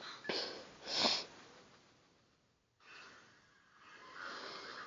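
A person's breath through a phone voice-changer app: two sharp breathy bursts about a second apart near the start, then a softer hissing breath that builds toward the end.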